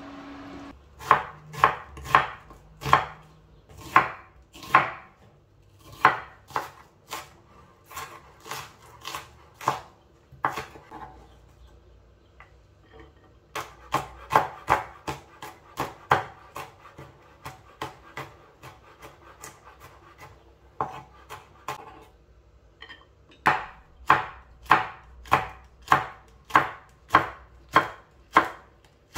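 Kitchen knife chopping garlic and then red chilies on a wooden cutting board: sharp knocks in runs of about two a second, with short pauses between runs.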